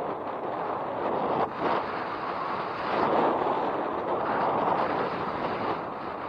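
Wind rushing over the microphone while riding an electric bike at speed. It is a steady rush that dips briefly about a second and a half in and swells around three seconds in.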